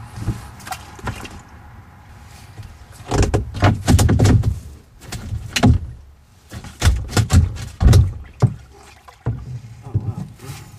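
Irregular knocks, bumps and rattles of handling against a kayak's hull and deck, carried straight to the kayak-mounted camera; they come in clusters, heaviest from about three seconds in to near the end.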